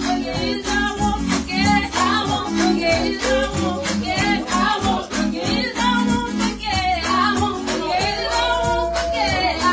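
Women singing a gospel song into microphones over an instrumental backing with held chords and a steady beat.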